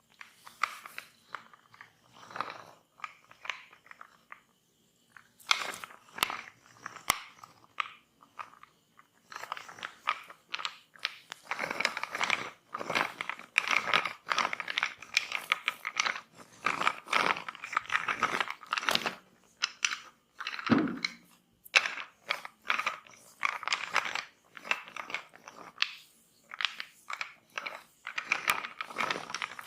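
Hands rubbing and kneading oiled skin or hair in a close-miked massage: an uneven run of crackling and squishing rub noises, sparse at first and much busier after about ten seconds, with a short pause and one brief lower sound about two-thirds of the way in.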